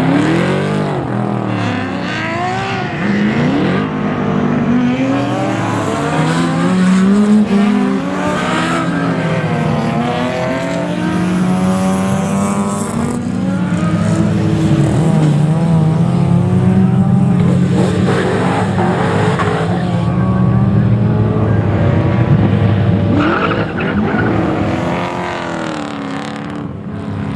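A field of historic race cars (muscle cars and Group A-era touring cars such as a BMW M3 and a Holden Commodore) passing one after another, several engines revving up and down through the gears at once. It is loudest in the middle and second half.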